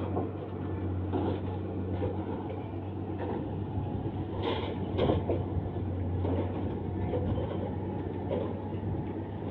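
Railway track-renewal train running, with a steady low engine drone and scattered metallic clanks.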